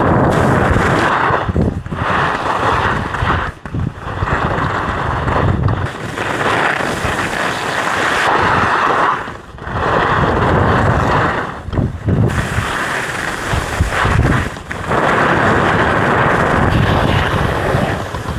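Wind buffeting the microphone of a camera carried by a skier at speed, mixed with the skis scraping over groomed snow. The rushing is loud and dips briefly a few times.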